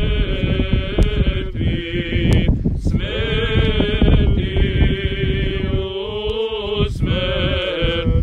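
Orthodox clergy chanting a liturgical hymn, long held notes that step up and down in pitch with short breaks between phrases.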